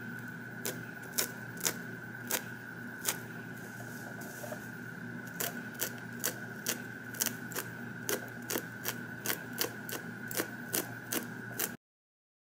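Stainless slant-tip tweezers clicking shut as hairs are plucked from a lace frontal wig's hairline. The clicks are sparse at first, then come about twice a second, over a steady high-pitched whine. The sound cuts out shortly before the end.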